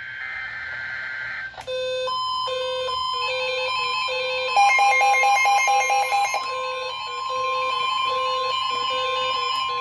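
Emergency Alert System flash flood warning sounding on several receivers at once. A short burst of buzzy data-header noise ends about a second and a half in. Then a steady high alert tone starts and holds, layered with two-tone beeping alarms that alternate about twice a second, and there is rapid pulsing from about five to six and a half seconds in.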